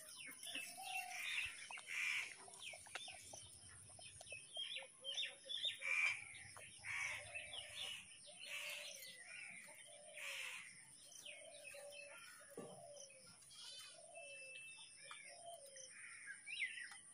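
Birds chirping and calling: many short, high chirps mixed with short lower calls, over a faint steady high whine.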